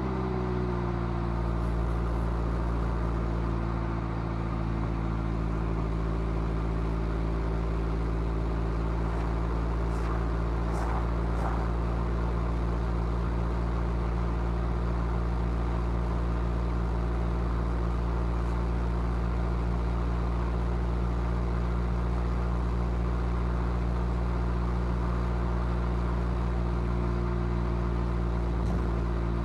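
Mazda MX-5's four-cylinder engine and stock exhaust, cruising. The pitch drops slightly in the first second, then the engine note holds steady under a layer of road noise.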